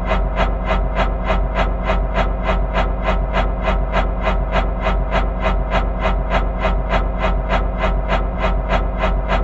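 Fan blades turning at a steady speed, each pass giving a whoosh, about three or four whooshes a second, over a constant low hum.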